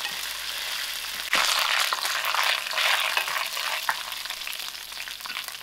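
Onions, chillies, curry leaves and spice seeds sizzling in hot oil in a stainless steel pan while a wooden spoon stirs them; the sizzle gets louder about a second and a half in.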